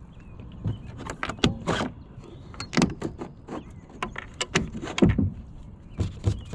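Irregular clicks and knocks from a pedal-drive kayak and its pedal drive, about a dozen of them, with the loudest knock about five seconds in.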